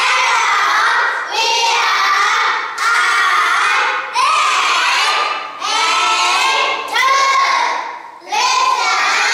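A group of young children singing loudly together in unison, a short phrase about every second and a half, seven in all.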